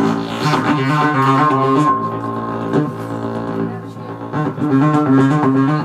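Loud live electronic music: a droning, buzzing bass tone held in long notes that shift pitch every second or two, with noisy texture above it. The level dips briefly about four seconds in.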